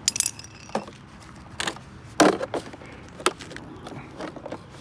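Hand tools being handled and put away: a handful of sharp metal knocks and clacks, the loudest about two seconds in.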